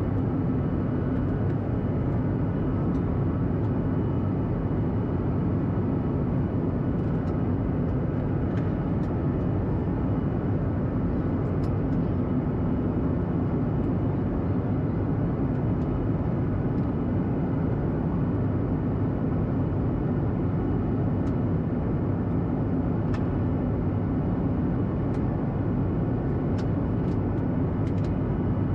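Steady cabin noise inside a Boeing 737-800 in flight: the even drone of its CFM56-7B jet engines and the rush of air past the fuselage, with a low hum running through it.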